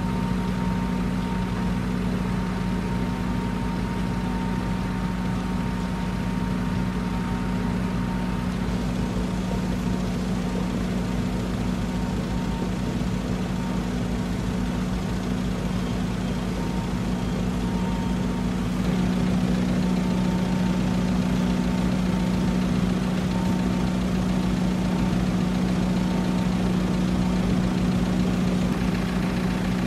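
A large engine running steadily at a constant speed, a low even drone that gets a little louder about two-thirds of the way in.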